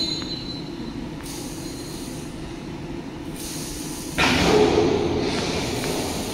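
Battery recycling plant machinery running: a steady mechanical rumble with a hiss, suddenly louder about four seconds in.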